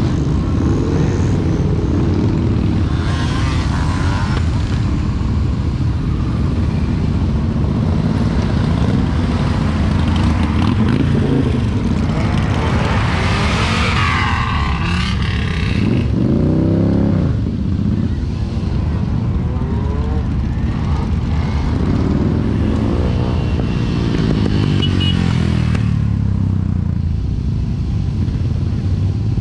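A procession of motorcycles riding past, their engines running in a continuous rumble with engine notes rising and falling in pitch as bikes go by and rev, most prominent about halfway through.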